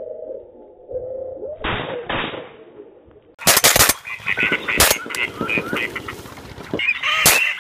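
Shotgun shots fired at a passing flock of ducks: two duller shots about two seconds in, then loud sharp shots about three and a half seconds in, again about a second later and once more near the end. Waterfowl call between the later shots.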